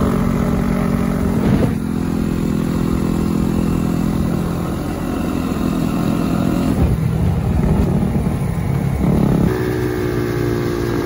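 Yamaha YZ250F four-stroke single-cylinder dirt bike engine running while riding. It holds a steady note, and the engine pitch changes about two, seven and nine and a half seconds in.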